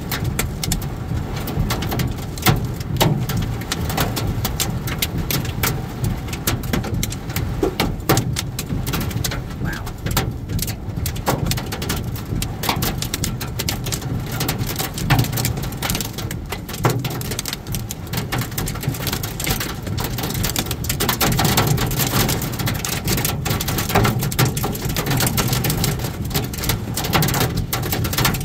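Heavy rain hitting the windshield and roof of a moving car, a dense patter of sharp ticks over the steady low hum of tyres on the wet road.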